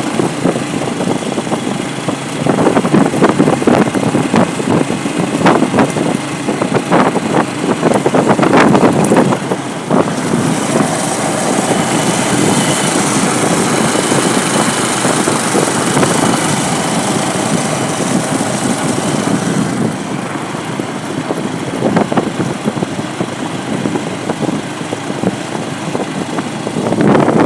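A vehicle engine running on the move, with frequent knocks and rattles during the first part and a high hiss from about ten seconds in to about twenty.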